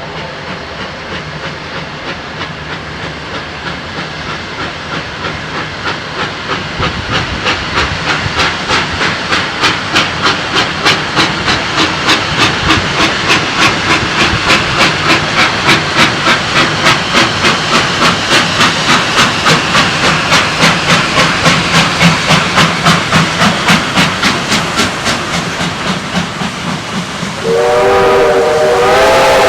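Two Victorian Railways R class 4-6-4 steam locomotives working a train, their exhaust beats in a fast, even rhythm that grows louder as they approach. Near the end a steam whistle sounds loudly, several notes at once, and holds.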